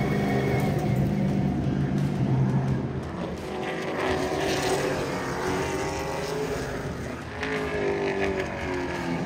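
Pro late model race cars' V8 engines running at speed on the track during practice. Steady at first, then rising and falling in pitch as cars pass.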